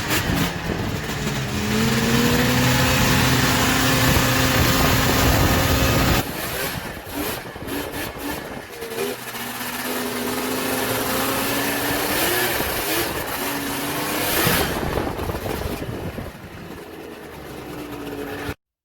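Snowmobile engine running under throttle as the sled is ridden, its pitch rising and then holding. It drops to a lower level about six seconds in, revs up again, and cuts off abruptly near the end.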